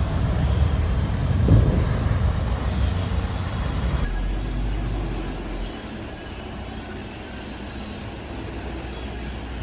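Water surging and sloshing with a heavy low rumble as a newly side-launched ship rocks in the canal, louder about a second and a half in. About four seconds in this gives way to the quieter, steady low rumble of a small tugboat's diesel engine.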